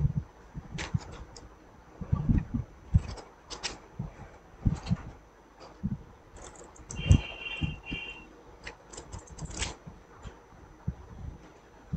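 Irregular clicks and low knocks from the room, with a brief high chirp about seven seconds in.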